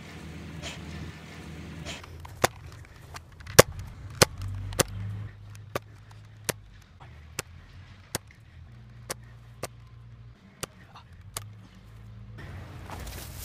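Gunshot sound effects: a string of about a dozen single pistol shots, roughly one a second, loudest early on and getting quieter toward the end, over a low hum.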